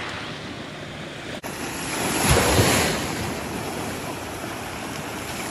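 Small waves breaking and washing up a gravel-and-sand beach, with a louder wave breaking about two seconds in.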